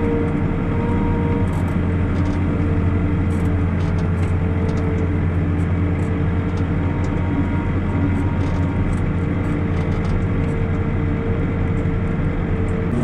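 Backhoe loader's diesel engine running steadily as the machine drives, heard from inside the cab as a constant low hum with a few steady tones over it.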